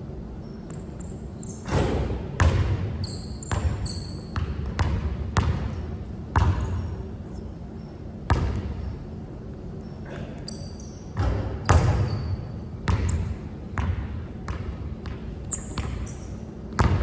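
Basketball being dribbled: a string of hard bounces on a court, at an uneven pace, with quick runs of bounces and short pauses between them.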